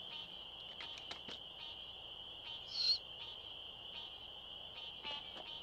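Faint, steady, high-pitched trilling chorus of night-calling frogs and insects, with a few soft clicks and one brief higher call about three seconds in.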